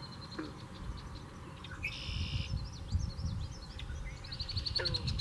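Birds calling over low wind rumble on the microphone. There is a high held note with a fast trill at the start and again near the end, a buzzy call about two seconds in, and scattered short chirps.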